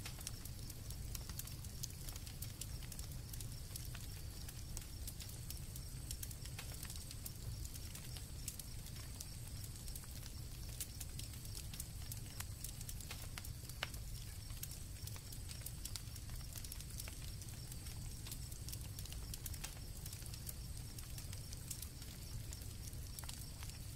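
Campfire crackling, with scattered sharp pops over a low steady rumble, and crickets trilling steadily in the background.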